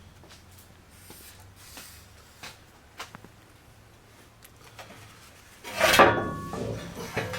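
Faint scattered clicks and knocks of handling, then a loud clatter with brief ringing about six seconds in.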